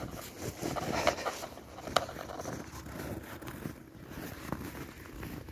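Footsteps in snow, about one or two a second, over a steady rustling noise.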